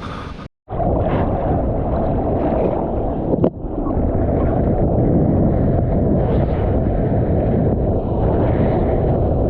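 Loud, muffled rushing of wind and water buffeting the microphone, starting after a brief dropout about half a second in. It dips briefly with a click about three and a half seconds in.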